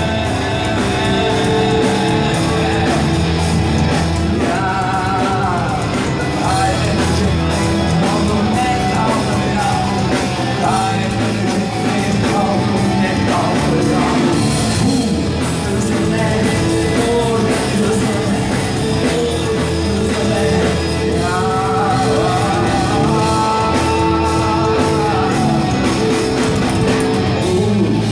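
Rock music: a full band plays steadily, with a wavering lead melody rising above it twice, and no words sung.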